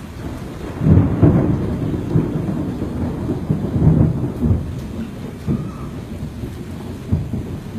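Thunder rumbling: a loud low roll breaks in suddenly about a second in, swells again around four seconds in, then dies away, over a steady hiss of rain.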